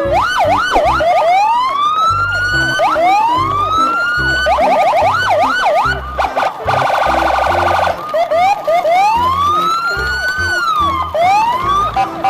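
Electronic siren-like sound effects over a repeating low beat: rising and falling wails with stretches of fast warbling, one after another.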